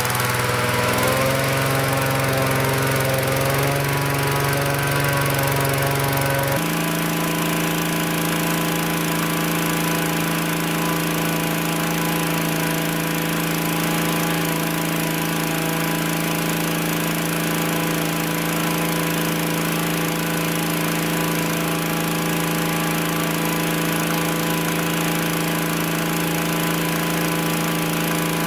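Small petrol engine of a hot air balloon inflator fan running steadily, blowing cold air into the balloon envelope during cold inflation. Its engine note shifts in the first few seconds, changes abruptly about six seconds in, then holds steady.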